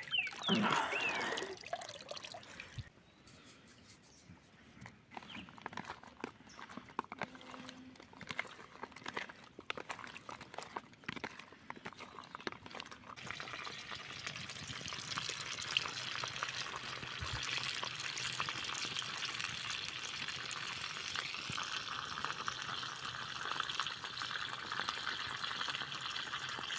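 Water splashing briefly as small fish are rinsed in a plastic tub. About halfway through, small lambari fish begin sizzling and crackling as they deep-fry in oil in a pan over a wood fire, the frying growing denser near the end.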